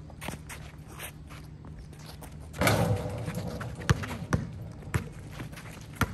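Outdoor pickup basketball: scattered thuds and taps of footsteps and the ball on the court, with a brief loud shout about two and a half seconds in.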